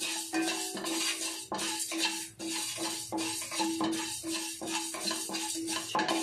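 Wooden spatula stirring dry grains (toor dal, rice and cumin seeds) being dry-roasted in a nonstick pan, the seeds rasping and scraping across the pan in about two to three strokes a second.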